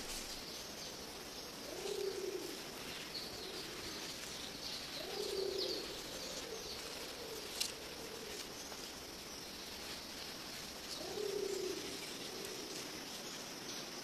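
A pigeon or dove cooing: three low coos spaced several seconds apart, over a steady high hiss of forest ambience with faint chirps of small birds.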